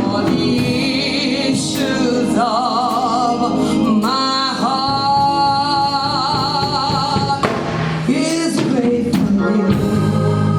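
Gospel singing with instrumental accompaniment: a voice holds long notes with wide vibrato, one note sustained for several seconds in the middle.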